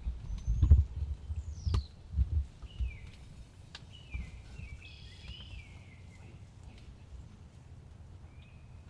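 Outdoor field sound: birds calling with several short falling chirps. Low thumps and knocks are heard during the first three seconds, then the sound settles to a quiet background.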